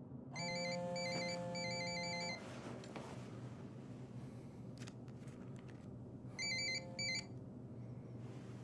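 Telephone ringtone ringing: an electronic ring with a pulsing high warble for about two seconds, then, after a pause, two short rings near the end before it stops.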